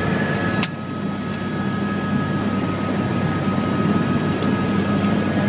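Helicopter cabin noise: the turbine engine and rotors make a steady drone with a low hum and a steady high whine. A sharp click sounds about half a second in.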